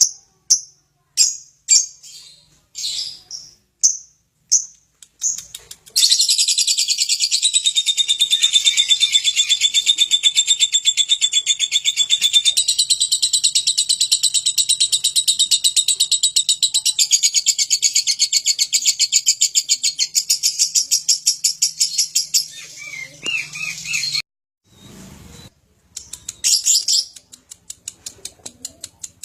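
Lovebird giving sharp high chirps about twice a second, then about six seconds in breaking into a long, very rapid chattering trill (the 'ngekek') that runs for nearly twenty seconds. After a short break it returns to scattered chirps.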